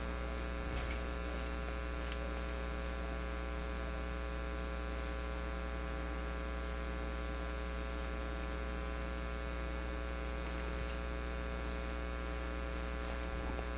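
Steady electrical mains hum with many evenly spaced overtones, with a few faint ticks.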